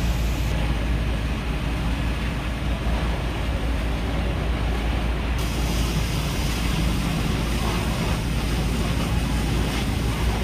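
Steady low rumble of engines and pumps with a noisy hiss over it, as hoses work a large fire; the hiss gets brighter about five seconds in.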